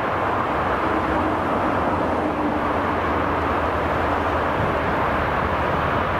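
Steady rumble of an approaching EP2K DC electric locomotive and its passenger train, heard from a distance, with a faint steady hum.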